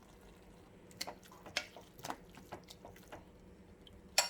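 Tomato curry simmering in a pan, with a scattering of soft pops, then a sharp metallic clink about four seconds in.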